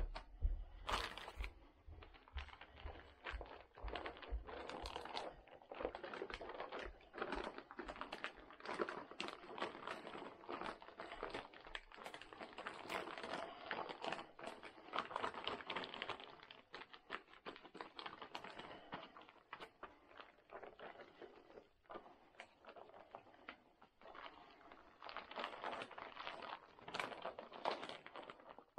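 Clear plastic sheeting crinkling and rustling under gloved hands as they press and smooth a resin-soaked pipe liner, with many small irregular crackles and clicks. The handling is busiest in the middle and again near the end.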